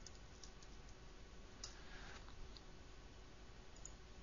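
A handful of faint, scattered computer keyboard and mouse clicks over near-silent room tone.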